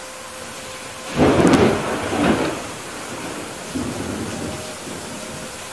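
Steady heavy rain, with a sudden loud clap of thunder about a second in that rumbles on for about a second and a half, and a smaller rumble near four seconds in.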